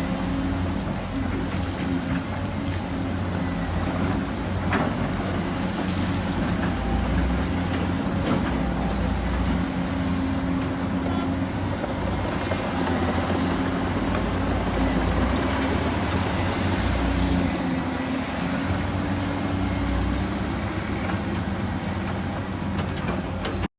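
Heavy construction machinery running: a diesel engine's steady low rumble that rises and falls a little under load, with a faint high whine above it.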